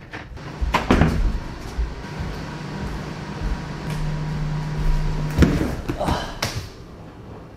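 Knocks and shuffling of a person moving about a room, ending in a heavy flop onto a leather couch with a thump and creaking rustle about five and a half seconds in.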